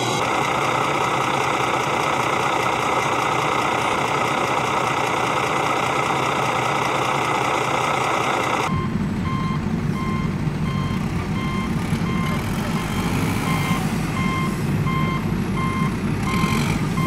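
Vehicle engine sound running steadily. About nine seconds in it switches abruptly to a lower engine rumble with a reversing alarm beeping about once a second.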